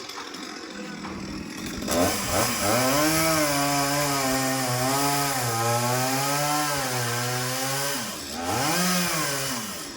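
Chainsaw revving up about two seconds in and running hard under load as it cuts wood, its pitch wavering up and down. Near the end it drops off briefly, then revs up again.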